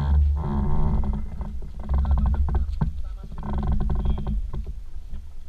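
Microlight trike's engine running at idle, a steady low drone, with uneven wind rumble and crackle on the microphone.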